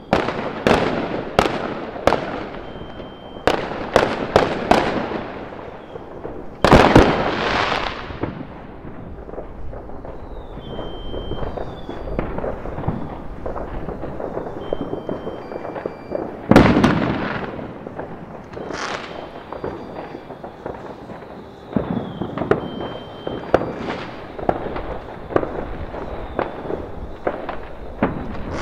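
New Year fireworks going off across the neighbourhood: many sharp bangs at uneven intervals. Two loud booms, about 7 and 16 seconds in, trail on for a second or so. A quicker run of crackling follows from about 22 seconds on.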